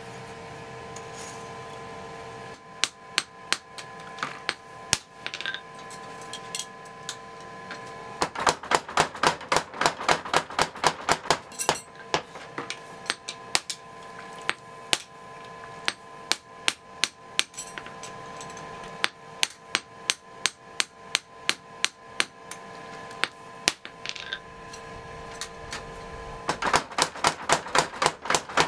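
Hammer blows on a steel kanna (Japanese plane) blade at the anvil: sharp metallic strikes, scattered at first, then a fast run of about four a second. The strikes slow again and pick up into another fast run near the end. The hammering is the stage that brings up a mirror-like luster on the steel.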